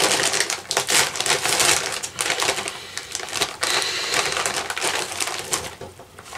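Plastic potato-chip bag being pulled open and handled, its metallised film crinkling in dense bursts, dying down near the end.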